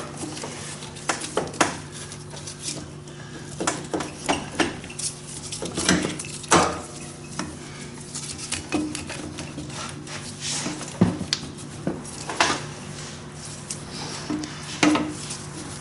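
Irregular metallic clinks and knocks of a carburetor being worked into its mounting on a Polaris Trailboss 330 ATV, over a faint low steady hum.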